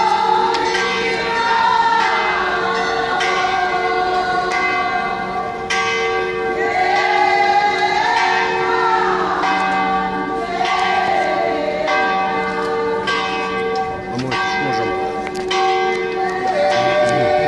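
Church bells ringing continuously, struck about twice a second over their long sustained hum. A voice singing rises and falls over the bells in the middle stretch.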